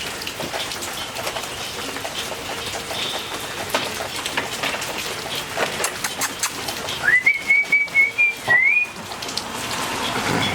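A puppy whining in a high, pulsing tone for about two seconds, starting about seven seconds in, over a steady hiss with scattered light clicks.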